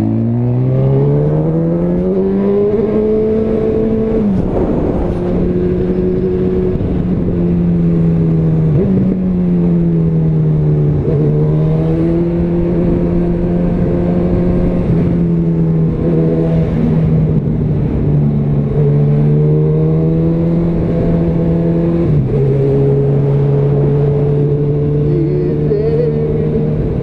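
Honda CB1000R's inline-four with a Yoshimura R77 exhaust under way. It climbs in pitch over the first four seconds and drops sharply with a gear change, then runs at fairly steady revs with a few short rises and dips. The last drop comes about 22 seconds in.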